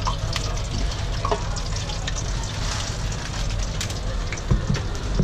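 Potato strips frying in a deep fryer, a steady sizzle with a few small crackles, over a low steady rumble.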